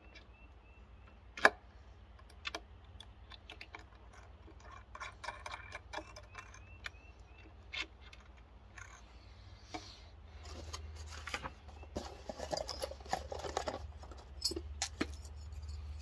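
Scattered small clicks and clinks of nut, bolt, washers and small metal assembly tools being handled while a Dobsonian telescope base is put together by hand. There is one sharper click about one and a half seconds in, and a stretch of rustling and handling from about ten seconds on.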